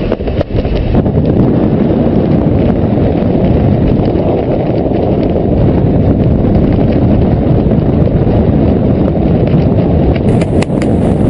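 Wind rushing and buffeting against a parachutist's helmet-camera microphone during the descent, loud and steady.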